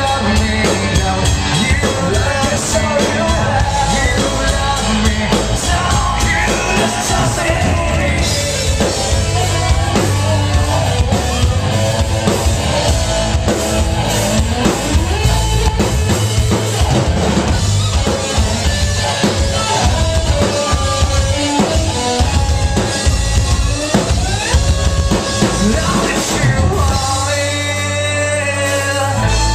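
Live rock band playing at full volume: electric guitar, bass guitar and drum kit, with a lead vocal singing over them.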